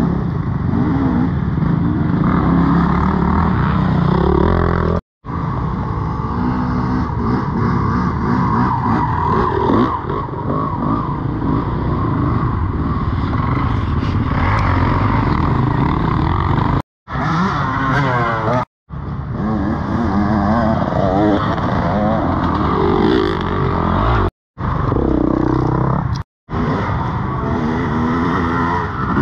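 Off-road dirt bike engines running and revving, the pitch rising and falling with the throttle. The sound cuts out briefly five times, about 5, 17, 19, 24 and 26 seconds in.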